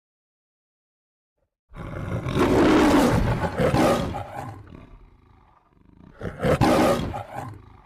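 MGM logo lion roaring twice: a long roar that begins after a short silence, then a second, shorter roar.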